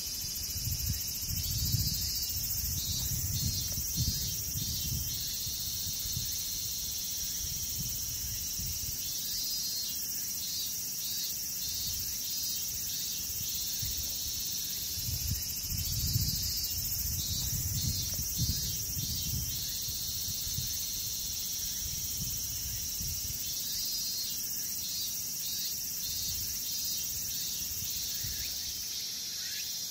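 Steady high-pitched chorus of insects chirring, with a pulsed phrase that comes back about every seven seconds. Patches of low rumble come and go underneath, strongest near the start and again about halfway through.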